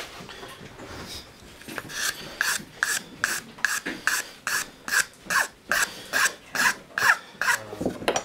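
Hand file worked in quick, even back-and-forth strokes, about a dozen at a little over two a second, each stroke with a rasp and a slight ring. The strokes start about two seconds in and stop shortly before the end.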